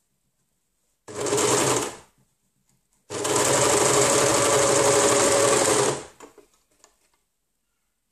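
Overlocker (serger) running in two bursts: a short one about a second in, then a steady run of about three seconds that stops abruptly. It is stitching a shoulder seam. A few faint ticks follow.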